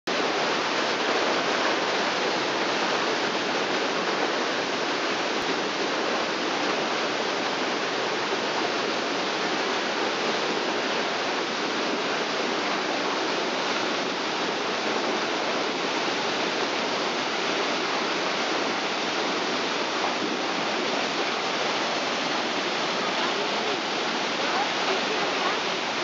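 Waterfall cascading over rocks and down into a narrow rock fissure: a steady, unbroken rush of falling and churning water.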